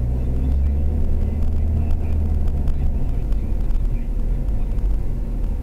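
Low, steady rumble of a car's engine and tyres heard from inside the cabin while it drives along the road, heaviest in the first few seconds.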